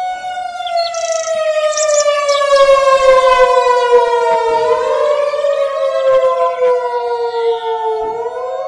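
Federal Signal 2001-DC electronic outdoor warning siren sounding its Attack signal: a loud wail of several tones together gliding slowly down and back up, swelling to its loudest near the middle. Birds chirp faintly in the background.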